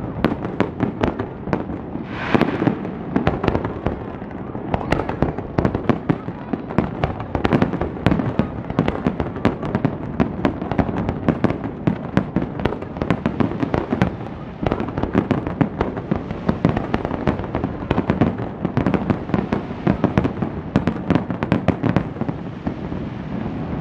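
Fireworks: aerial shells bursting overhead in a dense, unbroken run of bangs and crackles, several a second.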